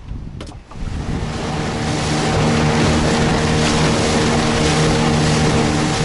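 Outboard motor running steadily as the boat moves, with a hiss of wind and water over it. A couple of sharp knocks come just before it starts.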